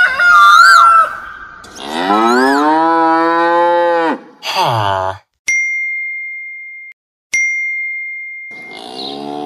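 Cattle mooing, dubbed in as a sound effect: a long low moo and a shorter falling one, after a high warbling whistle at the start. Then two single bell-like dings about two seconds apart, each ringing out for over a second, and another moo begins near the end.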